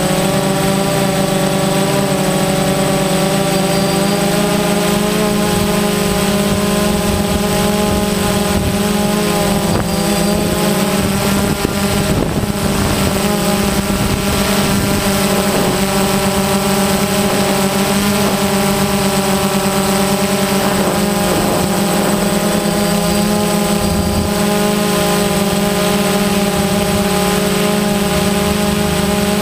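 A drone's electric motors and propellers whining steadily, picked up close by the camera on board, as several pitched tones. The tones shift in pitch about ten seconds in and again about twenty seconds in as the motors change speed.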